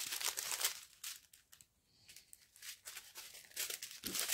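Strip of small plastic sachets of diamond-painting drills crinkling as it is handled and laid down, in crackly bursts with a short lull in the middle.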